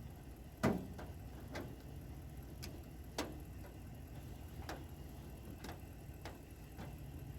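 A run of separate sharp clicks and light knocks, roughly one a second and unevenly spaced, the loudest about half a second in and about three seconds in, over a steady low rumble.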